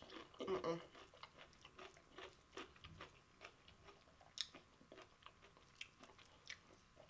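A person chewing food close to the microphone: soft wet mouth smacks and small clicks, the loudest about half a second in.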